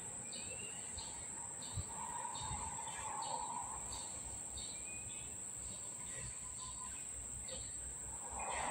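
Background ambience: scattered short bird chirps over a steady high-pitched whine, with no work sounds.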